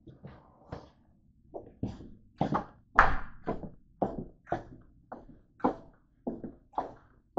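Footsteps walking along a hard-floored hallway, a steady series of short thuds about two a second.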